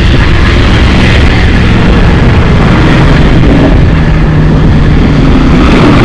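Loud, steady rumble of performance SUV engines running on a drag strip, with a Lamborghini Urus Performante's twin-turbo V8 driving slowly past close by.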